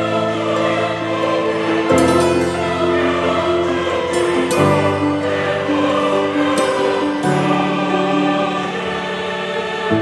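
Background music with sustained choir-like voices; the chord changes about every two and a half seconds.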